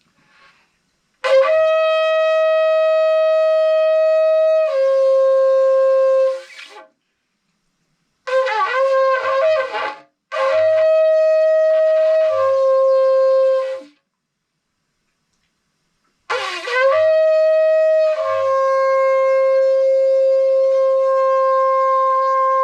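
Ram's horn shofar blown in four blasts: a long steady note of about five seconds, a short wavering, broken blast, another long note, and a final long blast that goes on for about six seconds. Each long note steps down in pitch partway through.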